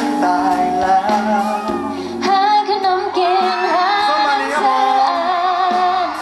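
Live pop band with electric guitar and bass guitar playing while a singer sings through the PA, holding one long wavering note in the second half.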